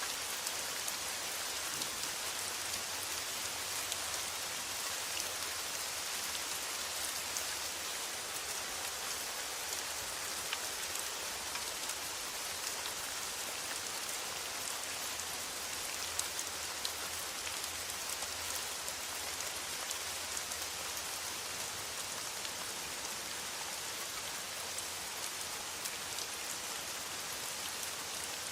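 Steady rain falling on a metal roof: a constant hiss of rain with many small drop ticks scattered through it.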